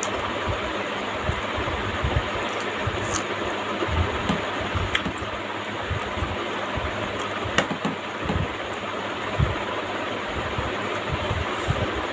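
A person eating close to the microphone: irregular soft low thumps and a few sharp clicks of chewing, over a steady background hiss.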